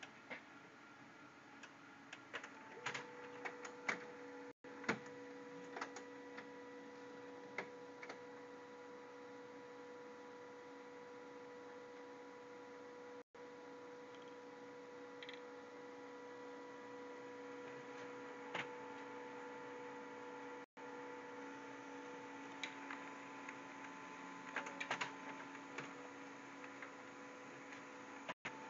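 Office multifunction printer running: a burst of clicks and clacks about three seconds in as it starts, then a steady motor hum with a high whine, with another cluster of clicks near the end.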